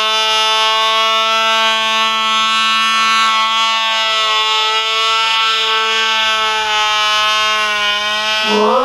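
Cox Black Widow .049 glow engine running flat out with a steady, high-pitched buzz. Near the end its pitch rises briefly before it starts to fall away.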